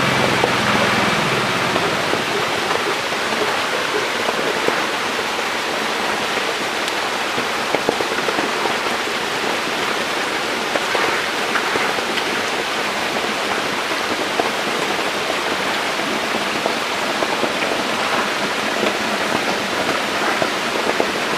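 Steady rain-like rush and patter of water in a shallow fish tank, with faint scattered ticks and splashes. A low motor hum dies away about a second and a half in.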